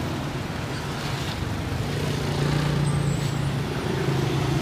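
Street traffic noise: a steady low engine rumble over a general hum of the street, growing a little louder about halfway through.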